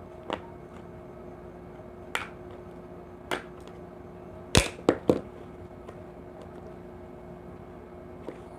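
Baby blue slime being handled and squeezed, making sharp clicking pops. There are about seven clicks, spaced out, with the loudest three coming in quick succession about halfway through, over a faint steady hum.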